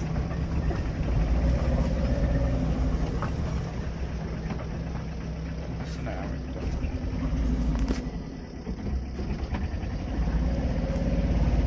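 Engine of a moving auto, heard from inside its cab: a steady low engine hum with road noise, easing off briefly about eight seconds in.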